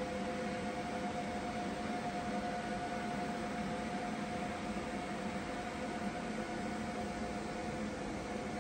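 Steady mechanical hum with two constant tones over a fan-like hiss, from running stage lighting equipment.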